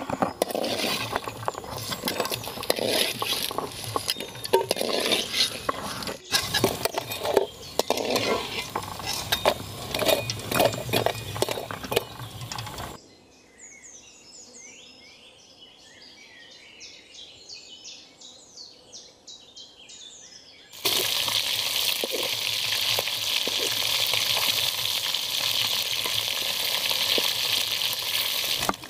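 Balia fish pieces frying in hot oil in a metal kadai, with a metal spatula scraping and clinking against the pan as the pieces are turned and lifted out. For several seconds in the middle there are only quiet high chirps. Then a fresh batch sizzles steadily in the oil.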